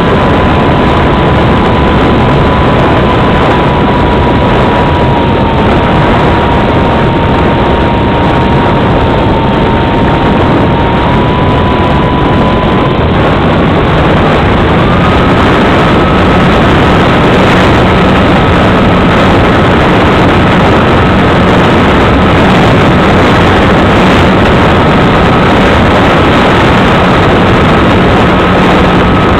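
Onboard sound of a radio-controlled model plane in flight: a loud rush of air over the microphone, with the motor's whine as one steady tone that steps up in pitch about halfway through as the motor speeds up.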